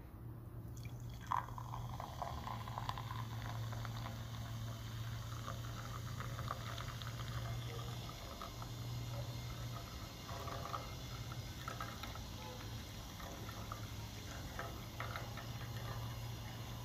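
Apple cider poured from a glass bottle into a glass tumbler, a continuous splashing, gurgling pour as the glass fills and foams. A brief sharp ring about a second in as the stream first strikes the empty glass.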